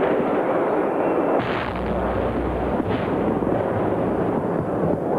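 Jet aircraft noise overhead, then heavy bomb explosions: a sudden blast with a deep rumble about a second and a half in, and another near three seconds.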